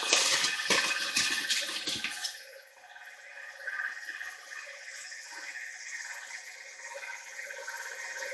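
Flour going into a stainless steel bowl of bread dough, with a few knocks against the bowl, for about the first two seconds. Then quieter, irregular sounds of the sticky dough being mixed by hand.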